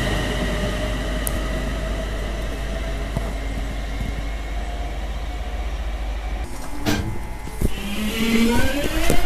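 A British Rail Class 350 Desiro electric multiple unit pulls away, its traction motors giving a steady whine that slowly fades. About eight seconds in, a second electric train's motor whine starts low and climbs in pitch as that train accelerates.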